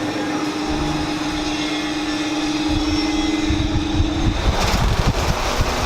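Air cooler fan motor speeding up as its AC dimmer speed control is turned up, the rush of air growing louder until it runs at full speed. A steady hum stops about four seconds in.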